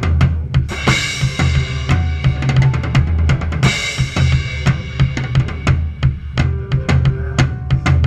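Drum kit played along with a recorded song: quick snare, tom and bass drum hits over a steady bass line. Crash cymbals ring out about a second in and again near the four-second mark.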